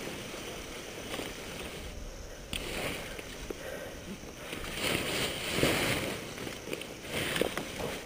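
Rustling and scuffing of a paraglider's nylon canopy and harness as the pilot moves among them on the ground, over a steady wind-like noise on the helmet-camera microphone. There are louder rustles about five to six seconds in and again near the end.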